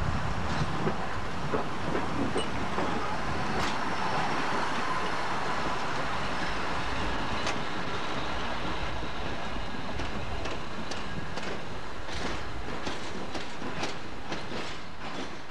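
Steam locomotive running past at close range: a steady mechanical noise with sharp clicks of its wheels over rail joints and points, the clicks coming thicker in the second half. It gets quieter near the end as the engine moves away.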